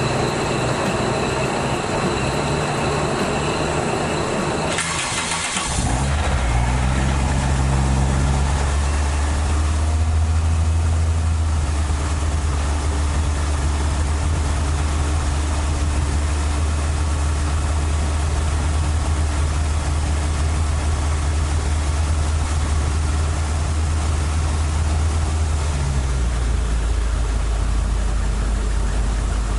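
Toyota AE86 Trueno's 4A-G twin-cam four-cylinder engine cranking on the starter for about five seconds, catching, then idling steadily. The idle note drops lower near the end.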